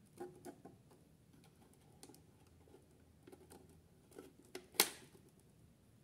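Fingers handling a 4.5 V flat battery and its wire contacts in the toy washing machine's metal battery compartment: scattered light clicks and taps, with one sharper, louder click a little before five seconds in.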